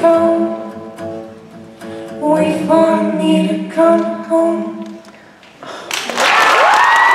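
A girl and a boy singing the last line of a duet into microphones over a light accompaniment; the song ends about five seconds in. About a second later the audience bursts into applause and cheering, with a long rising whoop that holds steady near the end.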